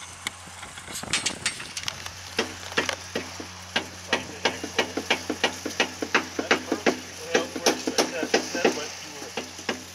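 A long series of sharp metallic clicks, about three a second, from hand work on a hinged mast's strut fitting. The clicks start about a second in and stop shortly before the end.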